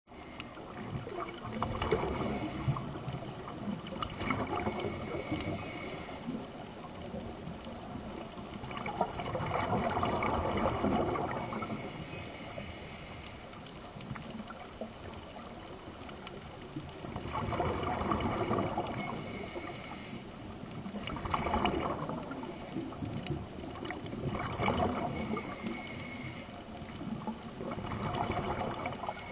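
Muffled water noise heard from a camera underwater, with swells of rushing and bubbling sound every few seconds over a steady hiss.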